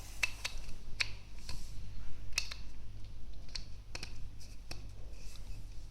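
About a dozen irregular light clicks and taps of rowing-machine parts being handled and fitted back together, over a faint low hum.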